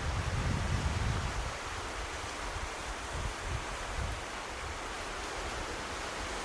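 Outdoor wind and sea ambience: a steady hiss of surf with wind buffeting the microphone. The low buffeting is strongest in the first second and a half, then eases.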